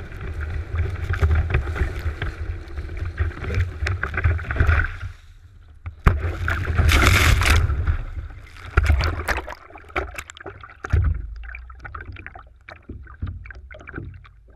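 Water rushing and spraying against a board-mounted action camera as a kiteboard planes over choppy water, with wind buffeting the microphone. About five seconds in the rush drops away for a moment, then a sharp hit and a loud splash, followed by lighter, irregular slaps of water against the board.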